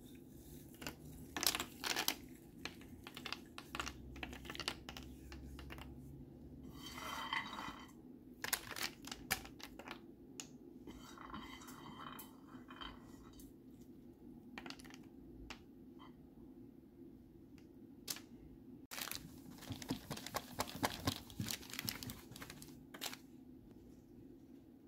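Hazelnuts and pistachios being scattered by hand over a parchment-lined tray of melted chocolate: irregular small clicks and short rustles of nuts and parchment paper, in several bursts, over a steady low hum.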